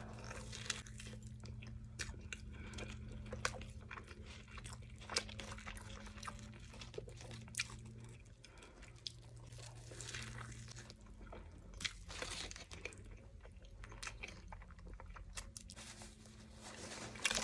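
Faint close-up eating sounds as a person chews and bites into a McDonald's McGriddle and hash browns, with many scattered small crunches and clicks. A faint steady low hum lies underneath.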